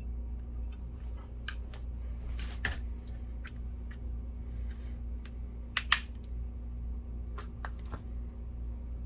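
Scattered small clicks and taps of pliers and a screwdriver working the captive screws and springs out of a laptop battery's plastic case, one sharper click about six seconds in. A steady low hum runs underneath.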